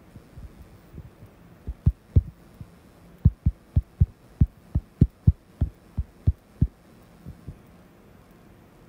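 Keystrokes on a computer keyboard, typing a short phrase. They are heard as dull, low knocks: a few near the start, then a quick run of about a dozen at roughly three a second in the middle.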